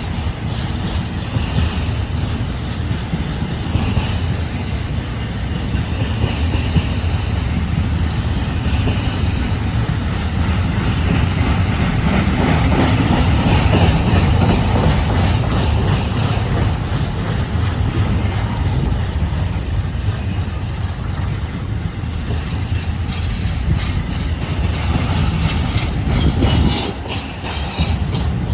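BNSF freight train rolling slowly past, a steady rumble of wheels and cars on the rails.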